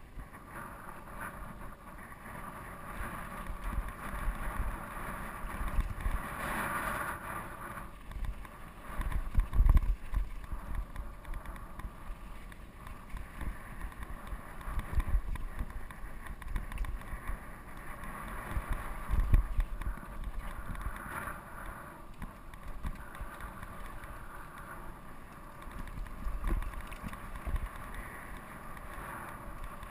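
Steel hardtail mountain bike (GT Peace 9'r) riding down dry dirt singletrack: its tyres roll on the dirt and it rattles over the bumps, with several heavy thumps, the loudest about ten and nineteen seconds in. Wind buffets the camera microphone throughout.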